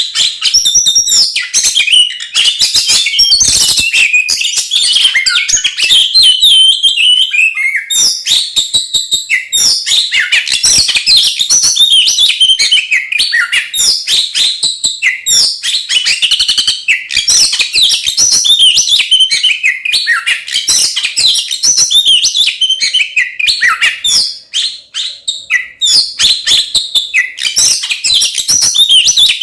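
Oriental magpie-robin (kacer) singing loudly and almost without pause: a fast, varied stream of whistles, chirps and rattling notes, its agitated fighting-mood song.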